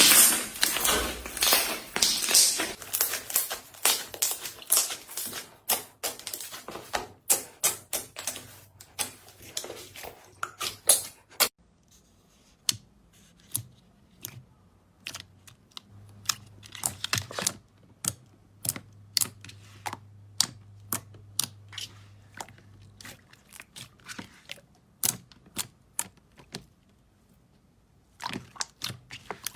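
Slime being squeezed and pressed by hand, giving off a dense run of crackling, popping clicks for about the first ten seconds, then sparser single pops.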